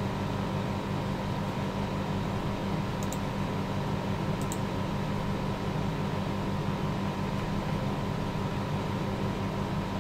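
Steady mechanical hum and hiss of a running machine, with two faint ticks about three and four and a half seconds in.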